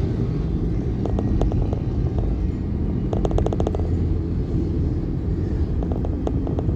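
Road vehicle on the move: a steady low rumble of engine and road noise, with scattered clicks and a short, fast rattle about three seconds in.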